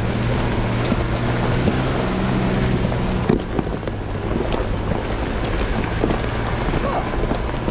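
Jeep Gladiator's engine running at low speed as it crawls a slick trail, with wind buffeting the microphone. A single sharp knock about three seconds in.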